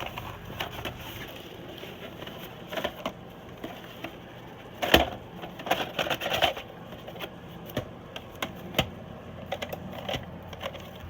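Scattered clicks, taps and knocks of a replacement furnace ignition module being handled, with the loudest knock about five seconds in and a short run of clatter just after, over a steady low hum.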